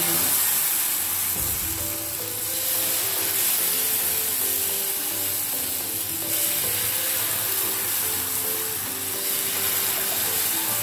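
Jowar-flour dosa batter sizzling steadily as it is poured from a ladle onto a hot, oiled non-stick tawa, over soft background music.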